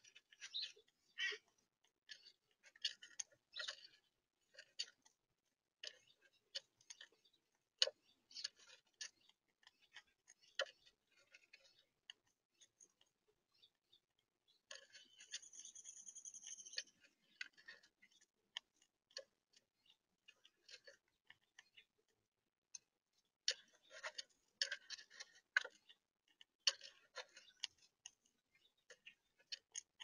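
Squirrels chewing and cracking seeds close to the microphone: faint, irregular dry clicks and crunches in clusters. About halfway through, a high steady-pitched sound lasts about two seconds.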